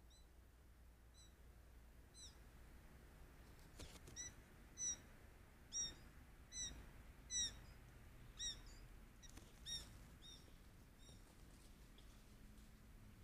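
Roe deer piping calls ("fiepen"), with a spotted fawn at the camera: a series of about a dozen short, high, downward-hooked whistles roughly a second apart, loudest in the middle of the series and fading out near the end.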